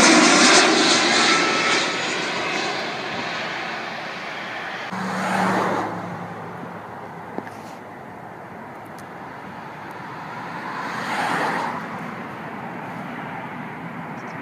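Jet engines of an easyJet Airbus airliner passing low overhead on approach with its landing gear down: loud at first, then fading away over several seconds. Two brief rushing swells follow, about five and eleven seconds in.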